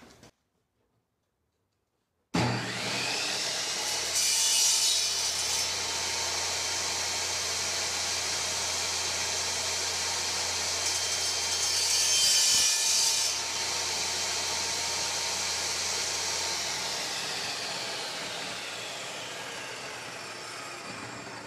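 Table saw switched on, running steadily, and making two miter cuts through small wooden pieces on a sled; each cut brings a louder, hissing rasp. Near the end the motor is switched off and the blade winds down.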